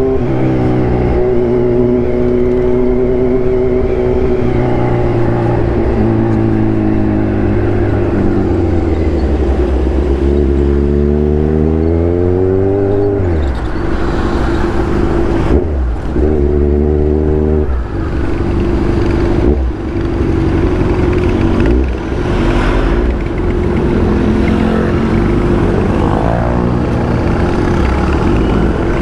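Kawasaki Z1000 inline-four motorcycle engine running under way. It holds a steady note at first, then revs up and drops back sharply at gear shifts several times in the second half.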